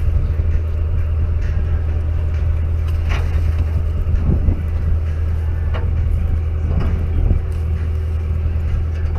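A fishing party boat's engine running with a steady low drone, with a few short knocks and clatters scattered over it.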